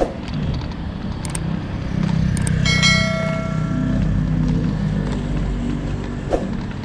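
Street traffic with a motor vehicle's engine running close by, growing louder about two seconds in. A brief high ringing tone, like a horn or bell, sounds for about a second around three seconds in.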